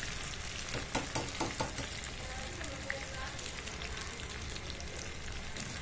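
Batter-coated chicken 65 pieces deep-frying in hot oil in a kadai, golden brown and nearly done: a steady sizzle with fine crackles throughout. A wire skimmer stirs them near the start, with a few sharp clicks in the first two seconds.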